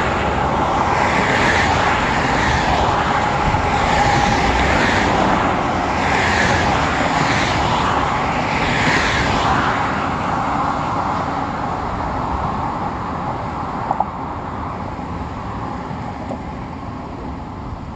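Expressway traffic passing close by: cars and a small truck go past one after another, the tyre and engine noise swelling with each pass-by. After about ten seconds the traffic thins and the noise fades, with one short sharp tick about two thirds of the way through.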